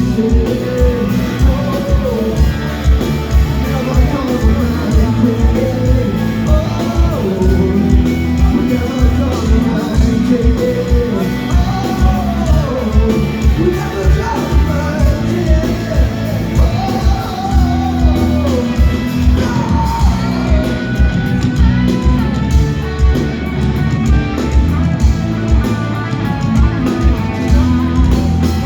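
Live rock band playing with a singer, the drums keeping a steady beat under the vocal line, heard in the echo of a large hall.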